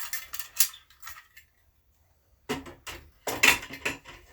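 Metal clicks and clacks of a lockable removable door mullion's hardware being worked with its key and latched. A few clicks come first, a short pause follows, then a quick run of clicks from about halfway in.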